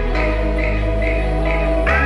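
Background music: electronic music with sustained bass notes and a melodic line, the chord changing near the end.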